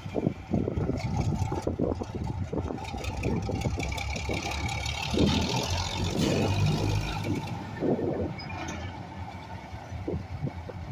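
GE 44-ton diesel switcher locomotive with its engines running, a low steady hum that is loudest about six to seven seconds in, with irregular clatter throughout.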